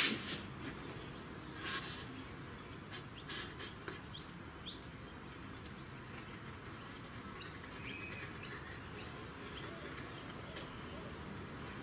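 Faint background with a few brief rustles and taps as a foam board is handled and marked with a pen against a plastic helmet shell, and a couple of faint bird chirps around four and eight seconds in.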